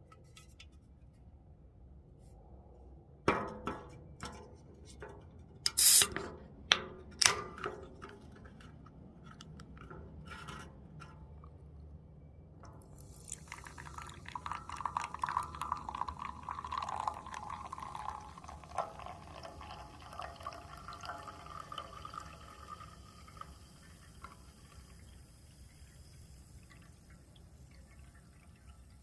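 A few sharp clicks and knocks, the loudest about six seconds in, then carbonated Pepsi Mango Zero Sugar poured into a glass from a little before halfway through, with a fizzing hiss that fades toward the end.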